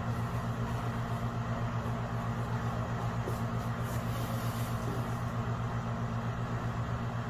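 Steady low machine hum, wavering slightly and unchanging throughout, with a few faint soft taps as foam packing pieces and the cardboard box are handled.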